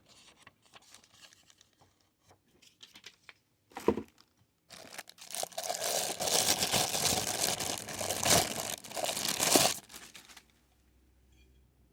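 Packaging being handled: faint rustles and ticks, a short knock about four seconds in, then about five seconds of loud crinkling and tearing.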